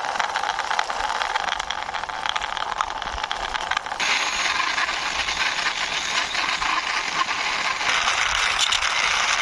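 Diecast toy cars being rolled by hand over a hard surface: a dense, continuous rattle of small wheels and metal bodies. It changes abruptly about four seconds in and again about eight seconds in.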